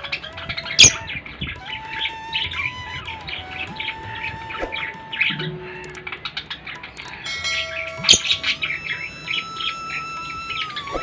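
A flock of small pet parrots chirping busily throughout, with some longer whistled notes and two sharp loud clicks, about a second in and again around eight seconds in.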